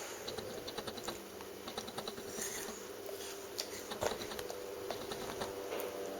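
Runs of small, quick clicks and taps, a few of them louder, like something small being handled or tapped on a hard surface.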